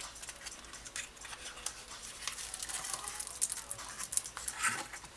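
A cardboard playing-card box being opened by hand and the deck slid out and set down: light rustling of paperboard with scattered small clicks and taps.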